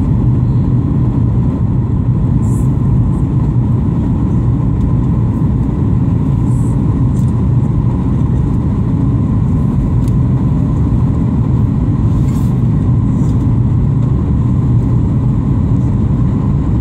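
Airliner cabin noise on the landing approach: a loud, steady low rumble of the engines and airflow, with a thin steady whine on top.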